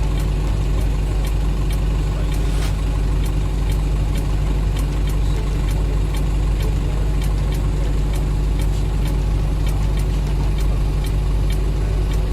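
A steady, loud engine drone, low and unchanging, with scattered faint clicks.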